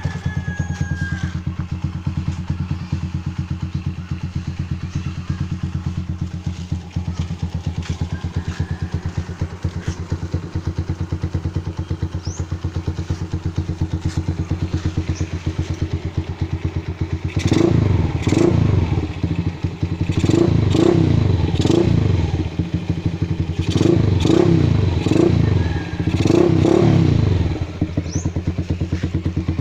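Rusi DL150 motorcycle engine idling with an even, rapid exhaust beat, then revved in four short blips over the second half, each dropping back to idle.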